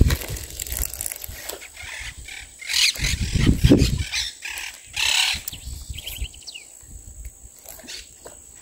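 Irregular rustling and bumps close to the microphone, with a short bird call of a few quick notes about six seconds in.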